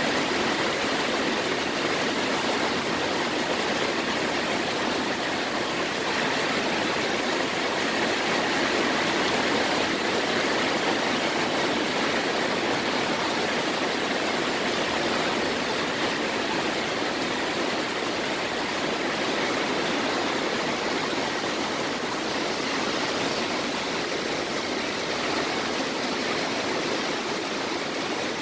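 Heavy thunderstorm rain pouring down steadily, an even hiss with no thunder claps.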